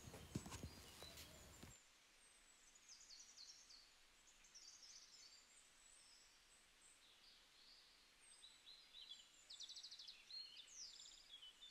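Near silence: faint room tone that drops away after about two seconds, then faint high chirps and short trills, like small birds singing.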